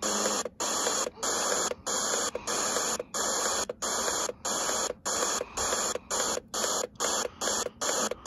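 Börne portable radio playing FM static hiss between stations. The hiss cuts out briefly each time the tuning button steps the frequency up one notch, about fifteen times, coming a little faster near the end.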